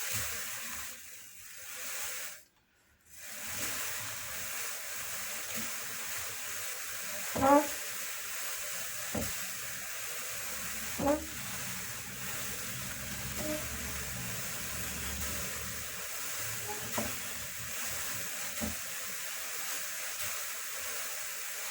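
Hand-cranked drum carder turning as white Jacob wool is fed in, a steady scratchy hiss of fibres on the carding cloth. A few brief, louder sounds stand out, the first about seven seconds in, and the sound cuts out briefly about three seconds in.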